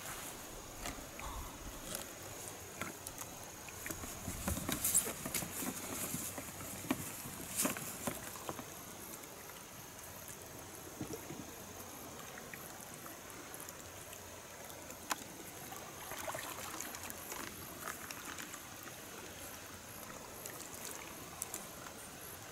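Kayak sitting in shallow lake water: faint lapping and dripping water around the hull, with a run of small splashes and knocks from the paddle and boat about four to eight seconds in.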